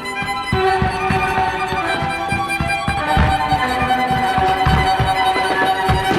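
Music led by violins over a fast run of low firework booms, about three a second.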